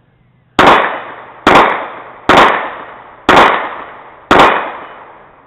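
Five handgun shots fired at a steady pace, about a second apart, each trailing off in a short echo.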